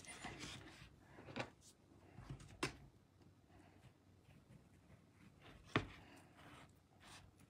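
A chef's knife cutting through cantaloupe and knocking on a wooden cutting board: three faint, sharp taps, the loudest a few seconds after the second.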